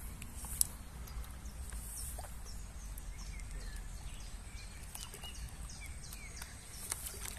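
Water splashing and dripping as a hooked carp is drawn over a landing net at the surface. There are many small dripping sounds, a sharp click about half a second in, and a low steady rumble underneath.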